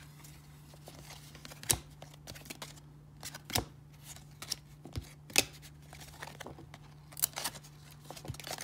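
1994 Topps baseball cards handled and flicked through one by one: irregular sharp clicks and snaps of card stock sliding off and slapping against the stack. The cards are partly stuck to each other. A faint steady low hum runs underneath.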